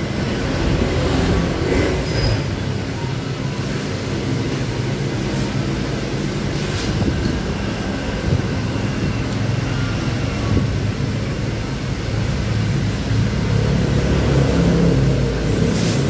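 Steady low mechanical rumble, like a running engine, with a few faint clicks over it.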